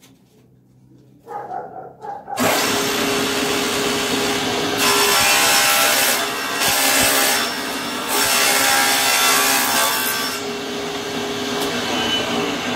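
Table saw starting abruptly about two seconds in and ripping a caixeta board lengthwise, trimming a thin strip off its edge. The cut swells and eases several times as the board is fed through the blade.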